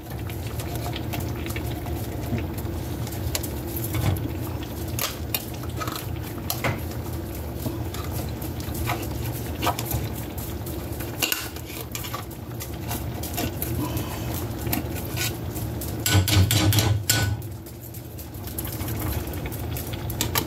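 A utensil scraping and clinking against a metal can of refried beans, working the thick beans out, with many short knocks and taps and a louder cluster of knocks about sixteen seconds in. A steady low hum runs underneath.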